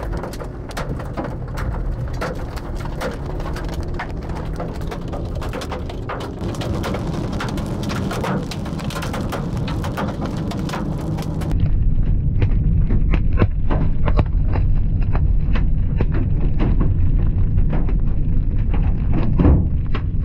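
Raindrops hitting a vehicle's windshield and body, heard from inside the car as many sharp ticks over a steady hiss. About halfway through, a heavier low rumble takes over and the drop hits thin out.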